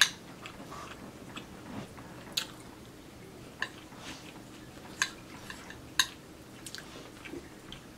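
A metal fork clinking and scraping on a plate as it cuts into soft enchiladas, about five sharp clinks spread out, with quiet chewing in between.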